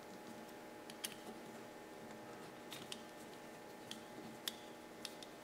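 Light, scattered metal clicks and ticks, about seven in all, from small screws and a hex key being worked while the screws are tightened down into the slider mount's stainless steel plate. A faint steady hum lies underneath.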